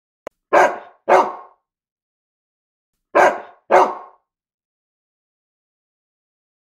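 A dog barking twice in quick succession, then twice more about two and a half seconds later.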